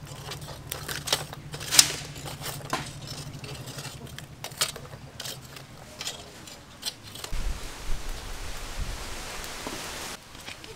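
Charcoal fire crackling under a wire grill rack, with irregular sharp pops and clicks over a steady low hum. About seven seconds in, the clicks give way to a steady hiss with a low rumble for a few seconds.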